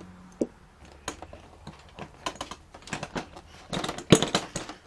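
Irregular clicks and light knocks, thickest and loudest near the end, as the ATV's plastic body panels and the sheet-metal and wire repairs under the seat are handled.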